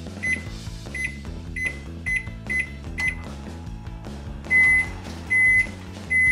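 Microwave oven beeping: six short beeps as its buttons are pressed to set 600 W for a minute and a half, then three longer, louder beeps near the end, the signal that heating is done. Background music plays underneath.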